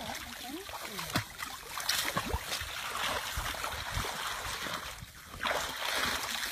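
Water splashing and trickling, with scattered knocks and splashes; a louder rush of splashing comes about five and a half seconds in.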